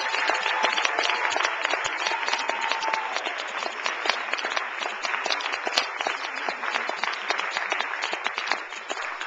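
Audience applauding: many hands clapping in a dense, steady patter that thins a little toward the end.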